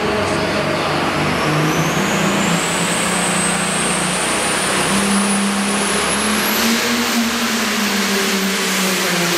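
Ford 9000 pulling tractor's engine running hard under load as it drags the weight sled. A high whine climbs steadily for several seconds, then holds.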